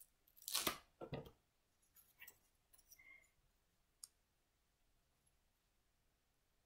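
Light clicks and rustles of die-cut foam pieces being pushed and peeled out of a foam sheet. The two loudest come about half a second and a second in, followed by a few faint ticks.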